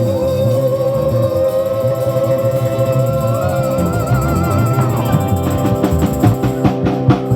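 Rock music: a long, wavering lead melody held over a bass line, then a quick run of drum hits from about five seconds in.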